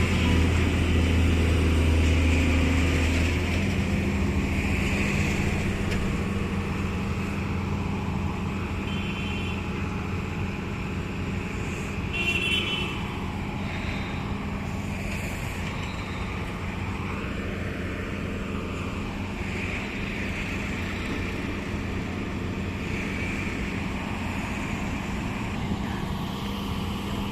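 Excavator's diesel engine running steadily as it works, louder for the first few seconds and then settling to a lower, even hum. A couple of brief high-pitched squeaks come about 9 and 12 seconds in.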